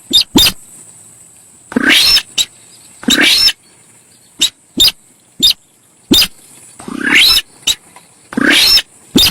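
Recorded lure call of the sintar sawah paddy-field bird, a busy 'cruit cit cuit' chatter: short sharp chirps mixed with longer harsh calls that rise in pitch, repeated every second or so.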